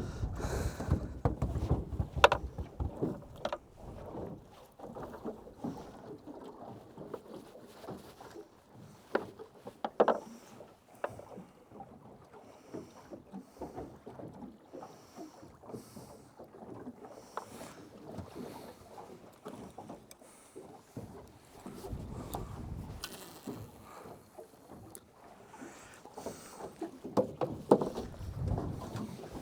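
Water slapping against a small boat's hull, with scattered knocks and clunks, busier at the start and near the end.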